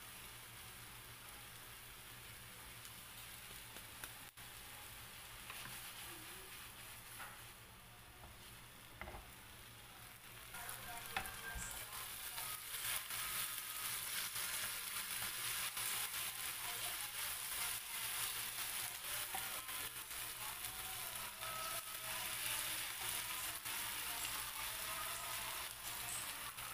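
Green chilli sambal frying in oil in a non-stick pan, a crackling sizzle with the scrape of a wooden spatula stirring it. The sizzle gets noticeably louder about eleven seconds in.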